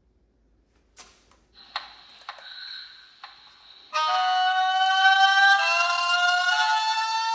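Model tornado siren sounding a high-low tone: two pitches alternating roughly once a second, starting loudly about four seconds in. A few clicks and a faint high steady whine come before it.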